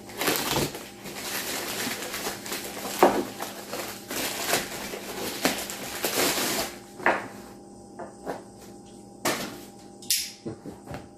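Plastic mailer bag crinkling and rustling as it is torn open and a cardboard box is pulled out of it. It goes quieter after about seven seconds, with a few light knocks as the box is handled on a wooden table.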